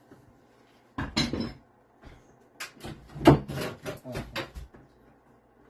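Wood knocking and clattering as the doorway's header and frame boards are worked loose in wall demolition. There is a short double clatter about a second in, then a quick run of about eight knocks, the loudest just past the middle.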